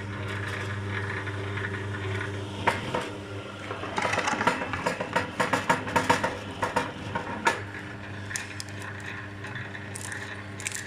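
Electric cable-stripping machine running with a steady motor and gearbox hum. From about three seconds in to about seven and a half seconds, a dense clatter of clicks as a solid-core cable is drawn through the rollers and its insulation slit by the blades.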